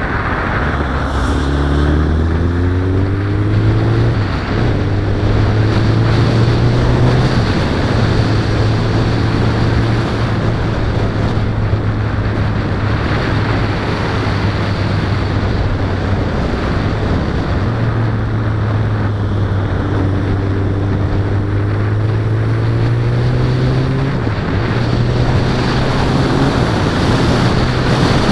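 Suzuki Bandit's inline-four engine pulling through the gears, its pitch rising and then dropping at each upshift, holding steady at cruise for a stretch midway, then climbing through the gears again near the end. Wind rushes loudly over the microphone throughout.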